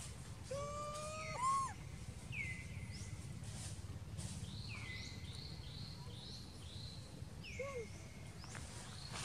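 Animal calls: a clear call that slides down and levels off, repeated every couple of seconds, with a quick run of shorter falling calls midway. About a second in comes a louder two-part squealing call that rises and falls. A steady low hum runs underneath.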